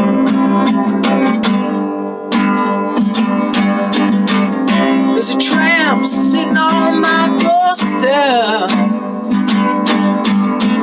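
Instrumental song intro: strummed acoustic guitar in a steady rhythm, with wavering, gliding melodic phrases over it twice in the middle.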